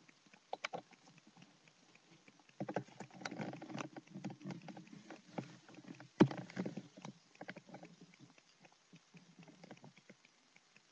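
Handling noise: scattered clicks, then a few seconds of rustling and knocking with one sharp, loud knock about six seconds in, quieter clicks after.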